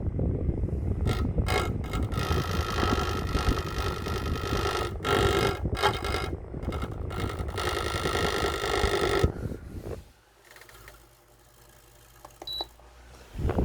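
Electric fan blades rattling against a finger pushed into the running fan: a loud mechanical clatter with a few short breaks. It cuts off suddenly about nine seconds in, leaving only a faint sound.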